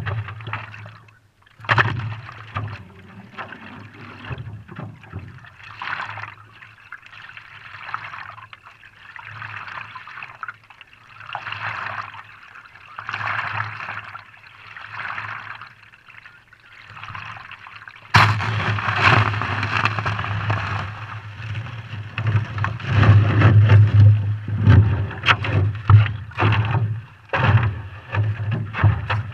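Stand-up paddleboard moving across calm water: paddle strokes splashing every second or two, with water gurgling and slapping against the board. About two-thirds of the way through it gets suddenly louder, with sharp clicks and knocks over the splashing.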